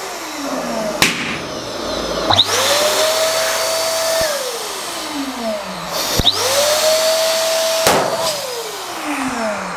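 Electric balloon pump running with a rush of air, its motor spinning up quickly and then slowly winding down, twice over. Sharp bangs of overfilled latex balloons bursting come about a second in, a little later, and near the end.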